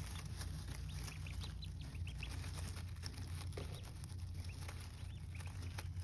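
Day-old ducklings giving soft, scattered peeps while pecking at a plastic feeder and stirring wood shavings, making small ticks and rustles over a steady low hum.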